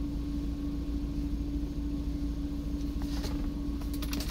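UAZ engine idling steadily, heard from inside the cabin, with a low rumble and a constant hum. A few small clicks come near the end.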